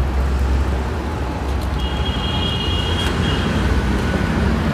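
Steady low rumble of roadside traffic, with a faint high tone lasting about a second and a half around the middle.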